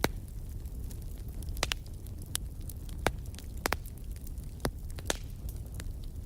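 Wood fire burning in a fireplace: a steady low rumble of flames with sharp crackles and pops at irregular intervals, the loudest pop right at the start.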